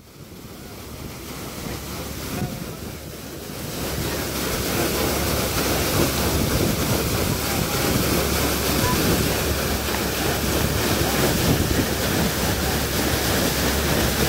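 A sternwheeler's wooden paddle wheel churning and splashing through river water, fading in over the first few seconds and then steady, with wind on the microphone.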